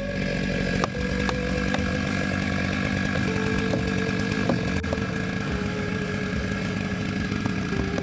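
Two-stroke chainsaw running steadily, with a few sharp knocks from a mattock chopping into the dirt under a log.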